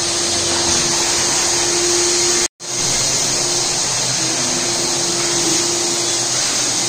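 Marble floor grinding-polishing machine running steadily on wet Italian marble during the first polishing cut: a steady motor hum under a grinding hiss. The sound cuts out for a moment about two and a half seconds in.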